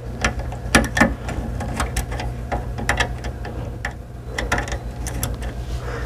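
Small screwdriver working the screw terminals on a DSC PowerSeries NEO alarm panel's terminal strip to free the jumper wire between PGM1 and Zone 1: irregular light clicks, over a steady low hum.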